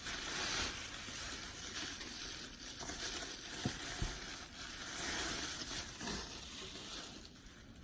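Tissue paper wrapping rustling and crinkling as it is handled and pulled away from a doll, fading near the end.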